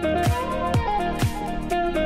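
Background music with a steady beat, a low drum about twice a second under sustained notes; the drum drops out near the end.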